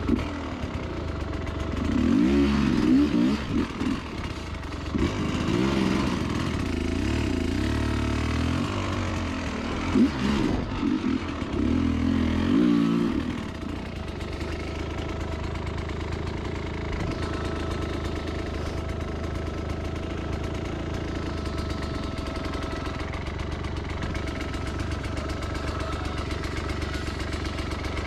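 Dirt bike engine revving up and down in surges for about ten seconds, with a sharp knock about ten seconds in, then running steadily at low revs for the rest of the time.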